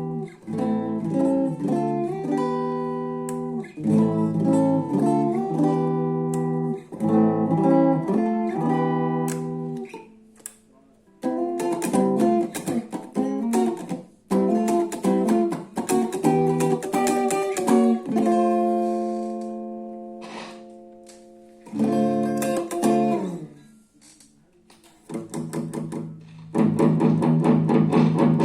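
Extreme XED-9837 guitar played unaccompanied: chords strummed and picked in short phrases with brief pauses, one chord left ringing and fading for a few seconds past the middle, and a denser strummed passage near the end.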